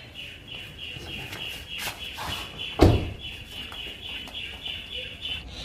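A car door shuts with a single heavy thump about three seconds in. Behind it runs a steady, high, rapidly pulsing chirping.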